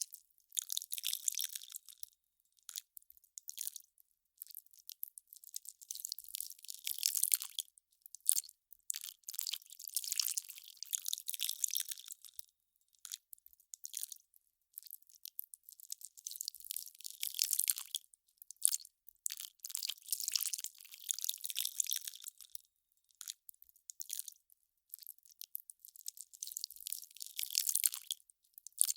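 Melting ice crackling and crunching: irregular clusters of fine, high-pitched crackles, each a second or two long, with short pauses between.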